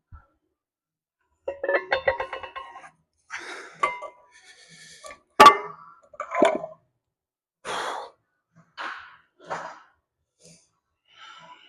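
Metal weight plates clinking and ringing, then one sharp clank, followed by several hard exhales from the lifter working through a set.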